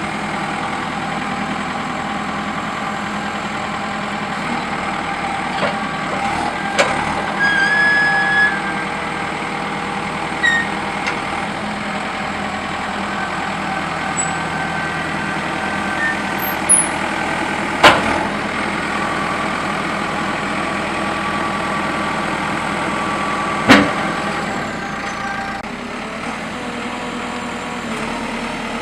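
JCB 3CX backhoe loader's diesel engine running steadily, with a few sharp knocks, the loudest about eighteen seconds in and another about twenty-four seconds in, and a brief high whine about eight seconds in.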